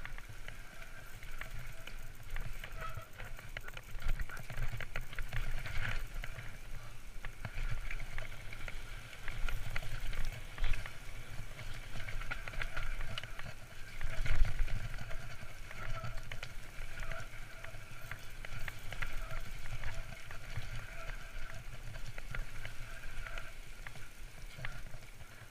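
Trek Fuel EX 8 full-suspension mountain bike ridden fast down a dirt trail, its tyres rolling over earth and stones with constant rattling and clattering from the bike over the bumps, and wind rumbling on the microphone. There are louder knocks about four, ten and fourteen seconds in.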